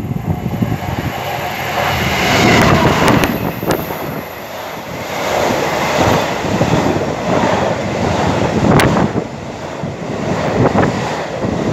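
Class 66 diesel-electric freight locomotive, its two-stroke V12 diesel running, passing close by and growing loud about two seconds in, then the rumble and rattle of its intermodal container wagons rolling past. A few sharp clanks are heard along the way.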